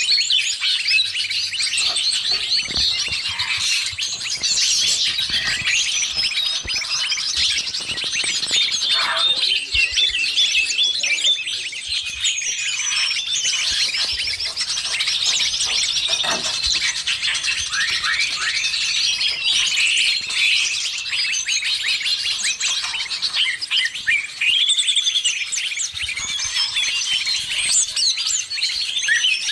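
Dense chorus of many small songbirds chirping, trilling and whistling over one another without a break, a 'noisy birds' lure recording mixed with green leafbird (cucak ijo) calls.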